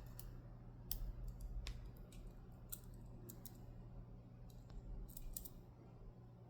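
Scattered small metallic clicks and ticks of a Dom Diamant disc-detainer lock's discs and parts being handled during disassembly, a few sharp ones spaced about a second apart, over a low steady hum.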